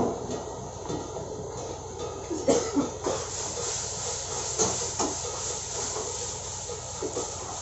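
Food sizzling in a wok over a high-flame gas wok burner, a steady hissing rush, with a metal ladle scraping and knocking against the wok a few times between about two and five seconds in.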